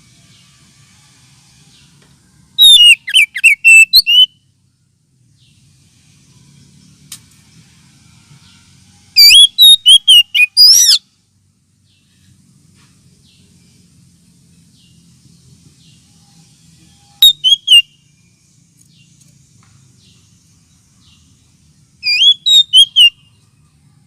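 Oriental magpie-robin (kacer) singing: four short, loud phrases of rapid whistled notes that sweep up and down, separated by pauses of several seconds. A faint hiss and low hum lie under the gaps.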